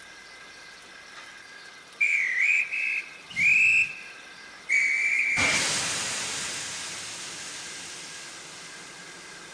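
Steam locomotive whistle giving four short toots, the first dipping in pitch, followed by a sudden long hiss of escaping steam that slowly fades.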